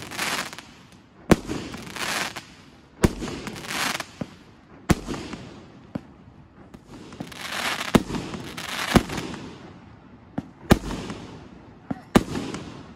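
Aerial fireworks bursting overhead: about six sharp bangs, a second and a half to three seconds apart, each followed by a second or so of fading crackling fizz.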